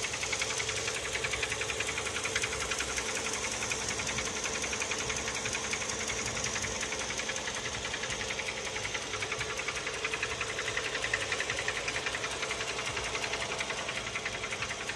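Toyota 2AZ-FE 2.4-litre inline-four engine running with a fast, steady knock, which the owner wonders may be a worn piston pin.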